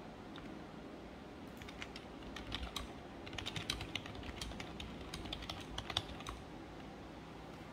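Typing on a computer keyboard: a quick, irregular run of key clicks that starts about a second and a half in and stops around six seconds in.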